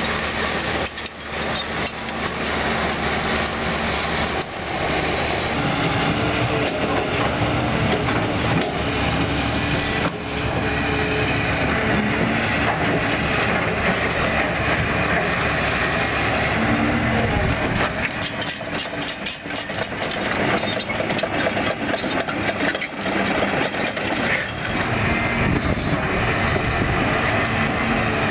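Caterpillar 320D2 hydraulic excavator working: its diesel engine runs under load with a steady note that shifts in pitch a few times. The bucket scrapes through crushed rock and gravel, with rattling and clanking from the machine.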